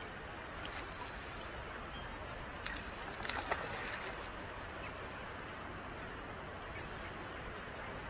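A hooked brown trout splashing and thrashing at the surface in a short burst about three seconds in, over a steady rushing background of the river.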